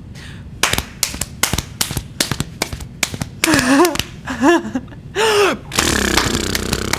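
A woman doing a horse impression: a run of sharp clicks, then three short neighing calls that each rise and fall in pitch, then a rough, buzzing lip-flutter snort near the end.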